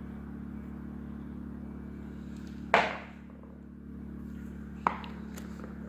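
Two sharp metal clinks, about two seconds apart, the first louder, as mid-depth sockets are handled and set down, over a steady low hum.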